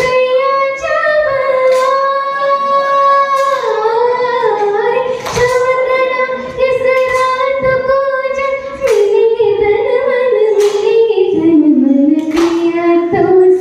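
A small vocal group, led by female voices, singing long held notes in unison, accompanied by acoustic guitar and a hand drum. The melody holds one pitch for the first few seconds, then moves and steps down lower near the end.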